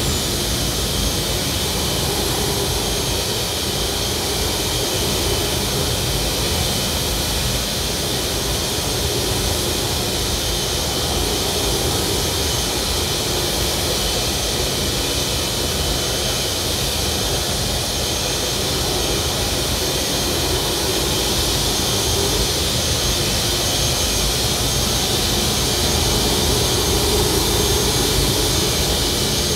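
Steady electronic white-noise soundtrack: a dense, unbroken hiss, brightest in the highs, with a low rumble underneath.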